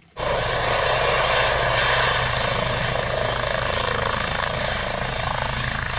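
Eurocopter EC135-family twin-turbine helicopter with a shrouded (fenestron) tail rotor, hovering just above a grass field. Its rotor and turbine run steadily, cutting in suddenly right at the start.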